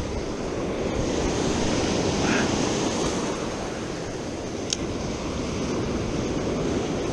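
Ocean surf washing onto a sandy beach, a steady rush of breaking waves that swells a little a couple of seconds in. There is a brief sharp tick just before five seconds.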